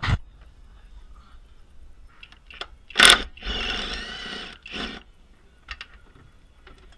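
Cordless power tool spinning a socket on a bolt at the rear shock mount: a short loud burst about three seconds in, then about a second of steady motor whine, then another short burst.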